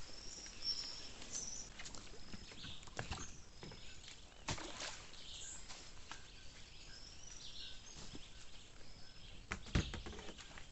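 Outdoor ambience of birds giving short high chirps over a faint wash of water, with a few sharp knocks, the loudest near the end.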